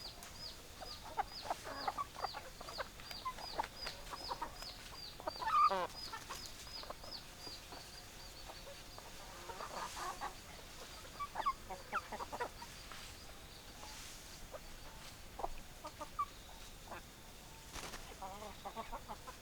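Chickens clucking: a flock of hens giving short scattered clucks, with one louder squawk about six seconds in. Through the first eight seconds a rapid series of high, falling chirps, about three a second, runs over the clucking and then fades out.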